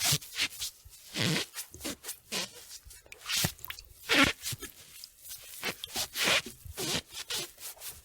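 A wet sponge being scrubbed and squeezed: irregular short swishes and squelches, a few each second, with brief pauses between strokes.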